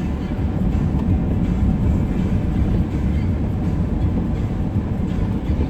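Steady low rumble of a car's tyres and engine heard from inside the cabin while driving on a wet road.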